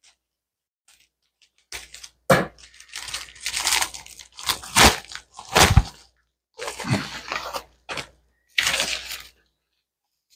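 Plastic postal mailer being opened by hand and its plastic-wrapped contents pulled out: crinkling and rustling of plastic packaging in several loud bursts, with a few sharp cracks. It starts about two seconds in.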